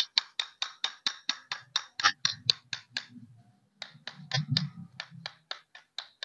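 Quick, steady metallic taps of a hammer on a punch, about five a second, driving a gudgeon pin into a new tractor piston and connecting rod. The tapping pauses for under a second about three seconds in, then carries on.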